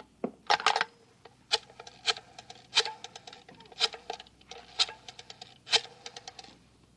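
Rotary telephone being dialled: several digits, each a sharp click as the dial is pulled round, followed by a run of quick faint clicks with a light whir as it spins back. The clicking stops shortly before the end.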